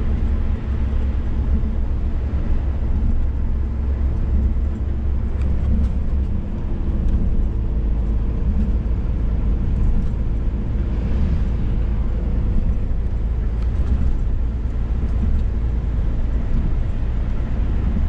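Scania S500 truck driving at road speed, heard from inside the cab: a steady low engine drone with tyre and road noise.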